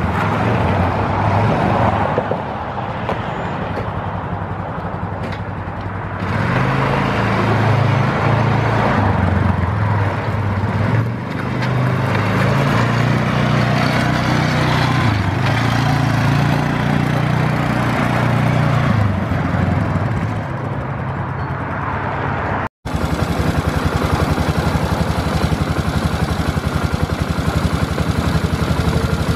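1996 Polaris Sportsman 500 ATV's single-cylinder four-stroke engine running while the quad is ridden, its pitch rising and falling with the throttle. After a cut about 23 seconds in, it idles steadily with an even pulse, heard close up at the engine.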